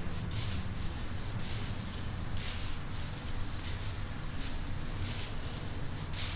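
Freshly roasted coffee beans stirred with a spoon in a metal sieve, a dry rustling scrape about once a second, over the steady hum of an electric fan blowing on them to cool the beans and stop the roast.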